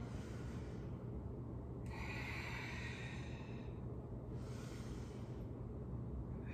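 A woman breathing slowly and audibly into a close microphone: two long breaths about two seconds apart, with a third beginning near the end, over a low steady hum. This is deliberate, paced yoga breathing.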